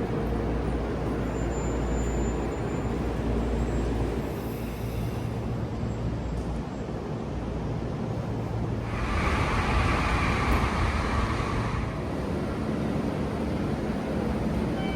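Running noise inside the carriage of a JR local electric train: a steady low rumble with a faint low hum. About nine seconds in, a louder, higher noise rises and holds for about three seconds before the rumble settles again.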